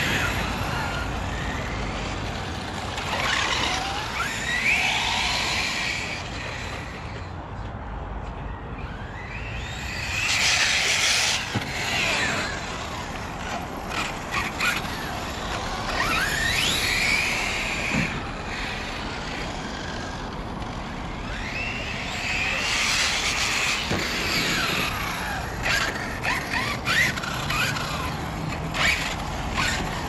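Radio-controlled cars running on asphalt, their motors whining up and down in pitch as they accelerate and slow, with louder stretches of tyre noise twice and a run of sharp clicks near the end.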